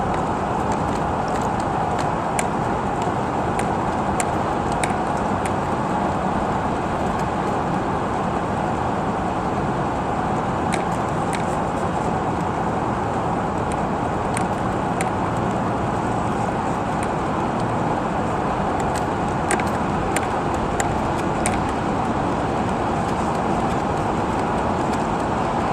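Radio-controlled model boats running steadily on the water: a continuous motor-and-water hum with scattered faint clicks.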